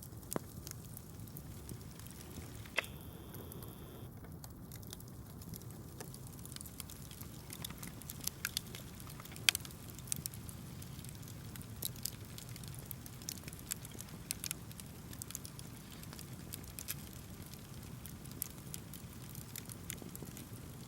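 Campfire wood crackling: irregular sharp pops and snaps, one louder snap about halfway, over a low steady rumble.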